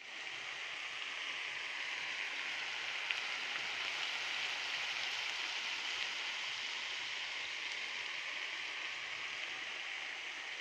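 Chicken and vegetables sizzling in a frying pan on a gas hob: a steady, even hiss.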